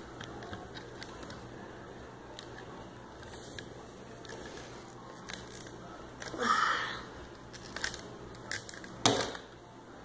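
Quiet handling of rubber loom bands and the plastic loom as a finished charm is pulled off the pegs: faint clicks and rustles, a louder rustle about six and a half seconds in and a sharp click about nine seconds in.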